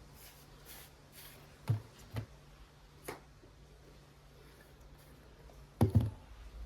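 Household objects being handled during tidying: soft rustling, a few sharp small knocks, and a louder clatter of several knocks near the end, over a faint steady hum that stops with it.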